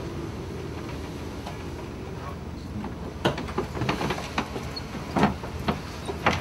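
Storm at sea heard from aboard a vessel: a steady rumble of wind and heavy seas, with a string of sharp, irregular knocks and rattles starting about halfway.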